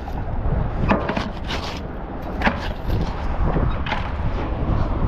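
A few short knocks and scrapes as a gloved hand picks debris off a magnet-fishing magnet and handles it. A steady low wind rumble sits on the microphone underneath.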